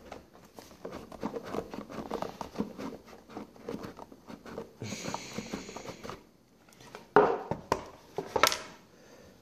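A cardboard presentation box being handled: fingertips tapping and rustling on the card, a second-long sliding scrape of card on card about five seconds in, then two louder knocks near the end as the box meets the table.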